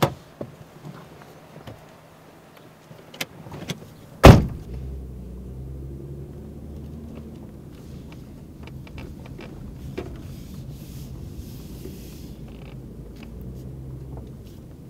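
Car door clicking open and then slammed shut about four seconds in, the loudest sound. After it, the car's engine and road noise run steadily, heard from inside the cabin as the car drives away.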